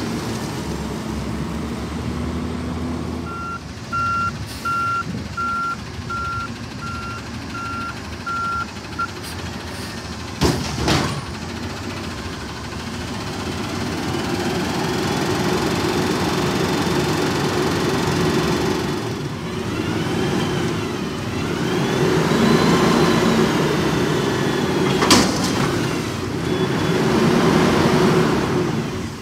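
Autocar ACX natural-gas garbage truck's backup alarm sounds a string of evenly spaced beeps for several seconds, followed by two sharp knocks. Later the engine revs up and down while the Heil front-loader's hydraulic arms lift a dumpster over the cab to tip it, with a sharp bang near the end.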